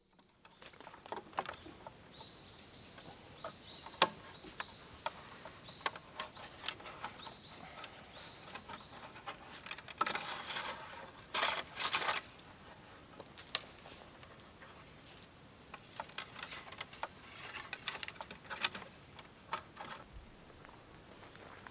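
Steady high-pitched insect drone outdoors, with scattered sharp clicks and light knocks throughout and two short rustling, scraping bursts about ten to twelve seconds in.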